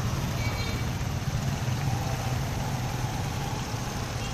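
Steady running of a small motorcycle engine, as on a Philippine motor tricycle, with street traffic around it.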